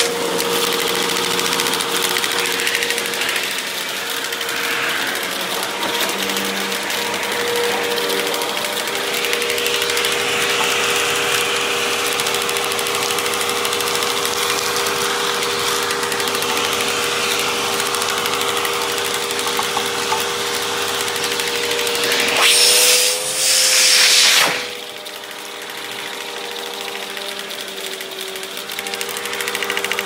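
Vacuum cleaner running over carpet, its motor giving a steady whine over the rush of suction. About three quarters of the way through it gives a louder rush for about two seconds, then runs quieter.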